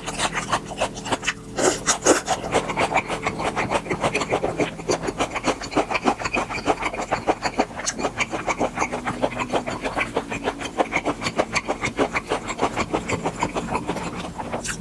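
Close-up chewing of grilled beef tripe: a steady rhythm of moist, rasping chews, a few per second.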